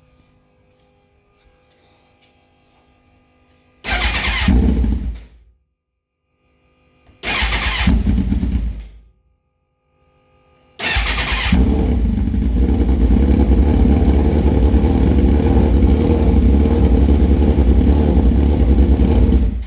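2006 Suzuki GSX-R1000's inline-four engine being hard to start: twice it fires briefly and dies away. On the third try, about 11 seconds in, it catches with a short flare and then runs steadily until it cuts off suddenly at the end.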